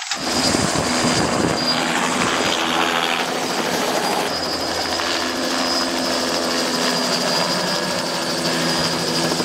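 Helicopter in flight, a steady mix of rotor noise and engine hum.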